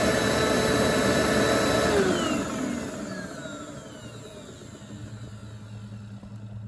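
Hoover Platinum Collection WindTunnel bagless upright vacuum (UH70010) running steadily, then switched off about two seconds in, its motor whine falling in pitch as it spins down to a faint low hum.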